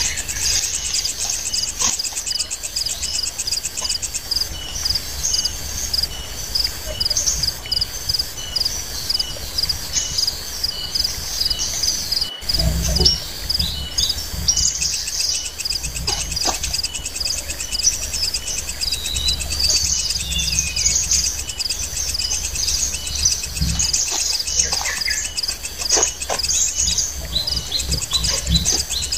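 Tropical forest ambience: insects trilling steadily in a fast, pulsing chorus, with birds chirping over it. A few short rustles and knocks come from a tarp being spread on leaf litter.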